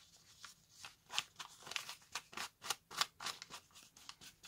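Soft, short scratchy strokes of an ink pad being swiped and dabbed along the edges of a stack of paper pages, two or three strokes a second at an irregular pace.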